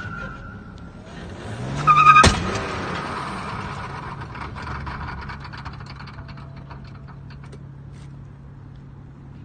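Car engine idling at rest, with one short rev about two seconds in that ends in a sharp crack; light clicks and ticks follow over the steady idle.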